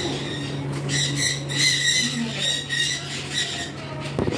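Small parrots chattering and squawking in short repeated calls, with a sharp knock near the end.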